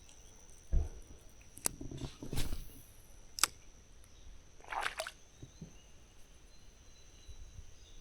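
A few short splashes and knocks in shallow creek water, scattered over a quiet background with a faint steady high-pitched tone.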